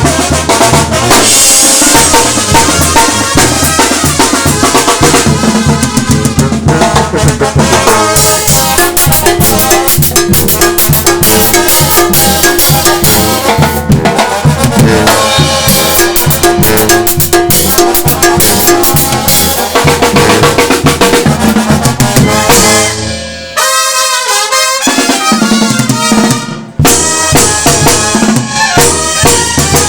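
Live Mexican banda music: brass and drums playing a steady beat. Near the end the bass and drums drop out for about three seconds while the higher horns carry on, then the full band comes back in.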